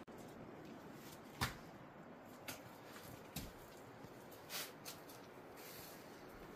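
Scattered knocks and scuffs of crutches and footsteps on cave rock as someone clambers down, the loudest about a second and a half in, over a faint steady hiss.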